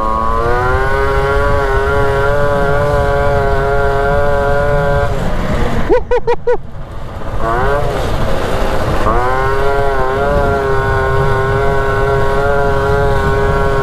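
Two-stroke 50 cc Motobécane Vogue moped engine held at high revs while riding, a steady high-pitched drone. About five seconds in the revs drop away with a few short blips, then climb back up and hold high again.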